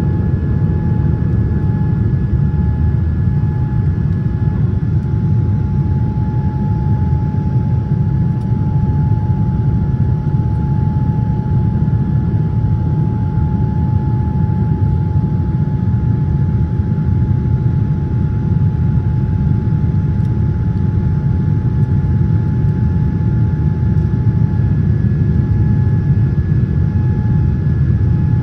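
Cabin noise inside a Boeing 787-10 climbing after takeoff: a steady low rumble of engines and airflow, with a faint steady whine above it.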